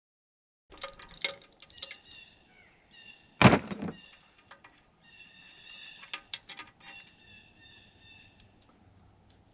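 Hand tools clicking and scraping on the steel of a mini excavator's bucket linkage while a snapped grease zerk fitting is worked on, with one loud metallic clank about three and a half seconds in. High, drawn-out tonal calls repeat behind the tool noises.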